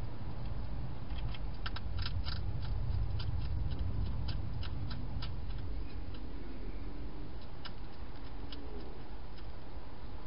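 Wild hedgehog crunching dry food inside a plastic feeding box: irregular sharp crunches and clicks, thickest in the first half and a few more near the end, over a steady low rumble.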